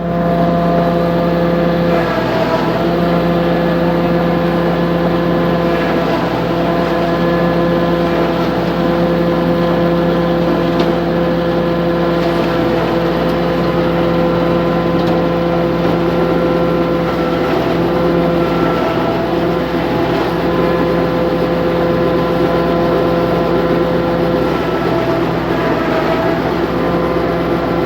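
Automatic silage baler machine running at a steady speed: a loud, even mechanical drone with several steady tones.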